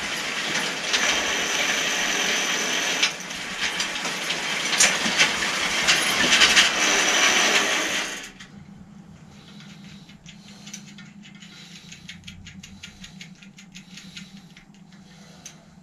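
A steady spraying hiss, dipping briefly about three seconds in and cutting off about eight seconds in. After it, faint light clicks and rattles as bicycle parts are handled.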